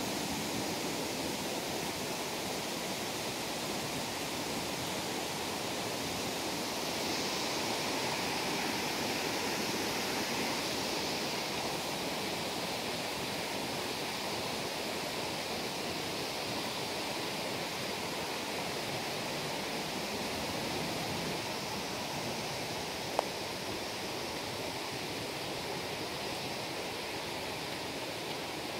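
Steady rush of water from a creek and its falls, an even hiss with no rhythm. A single sharp click sounds once, late on.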